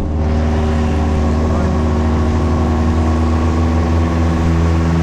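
Suzuki Jimny's engine running steadily at a constant pitch.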